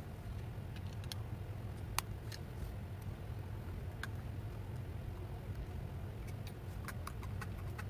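A few light, sharp clicks and taps of small metal airgun parts and tools being handled, the loudest about two seconds in and a quick cluster near the end, over a steady low hum.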